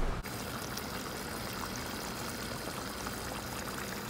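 Beef and tripe kare kare in peanut sauce simmering in a pot: a steady bubbling hiss with small scattered pops.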